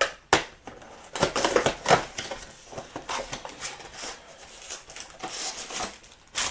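A box of trading cards being opened by hand: crackling and tearing of its plastic wrap and cardboard, with irregular clicks and rustles of handling, sharpest about a second and a half in and near the end.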